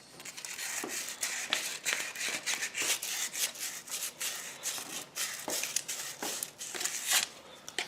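Quick, irregular scratchy strokes of hand scrubbing or scraping on a small metal engine part, several a second.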